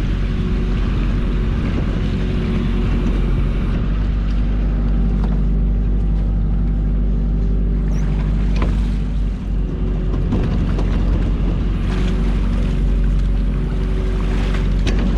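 Small fishing boat's engine running steadily, with a few short knocks and clunks.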